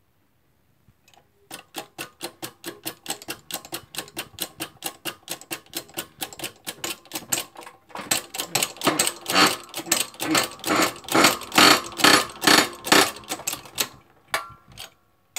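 Shop press being worked by hand to press two new bearings onto a Shopsmith Mark V quill shaft: a fast run of sharp clicks, several a second. The clicks start after a short pause, grow louder and come in tighter bunches about halfway through, and stop shortly before the end.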